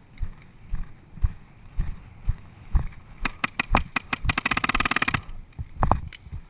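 Paintball marker firing: several quick single shots about three seconds in, then a fast burst lasting about a second. Footsteps thud on the ground about twice a second throughout.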